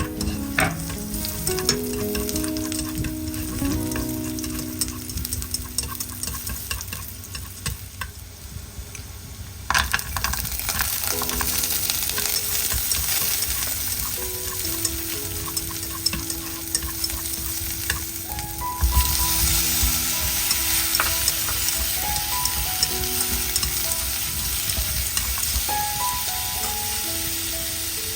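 Food frying in hot oil, a steady crackling sizzle with stirring. The sizzle grows louder about ten seconds in and again a little before the midpoint of the second half.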